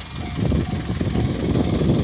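Japanese level crossing alarm sounding a short electronic tone over and over, under a low rumble that grows louder from about half a second in as a vehicle approaches.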